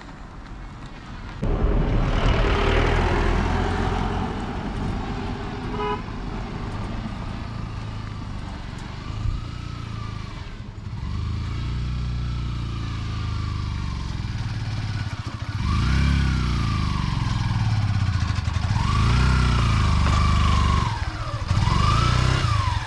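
Motorcycle engine running hard on a rough, rocky track. It comes in suddenly about a second and a half in, then is revved up and down several times, the pitch rising and falling, loudest in the second half.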